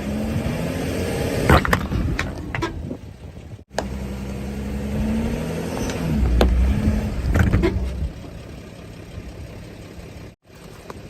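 Van engine revving as it drives the van up onto levelling blocks, with several sharp clunks and knocks as the wheels climb. The engine then settles to a quieter, steady run.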